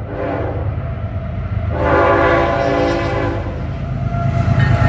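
Locomotive air horn blowing over the steady low rumble of a passing train. A short blast fades out just after the start, and a louder, longer blast comes from about two seconds in to about three and a half.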